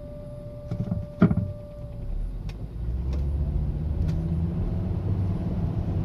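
Steady high-pitched whine from a 2005 Volvo S80 turbo with the driver off the throttle. It fades out about two seconds in as the gas is applied and the car's low engine rumble grows in its place. A sharp thump sounds about a second in.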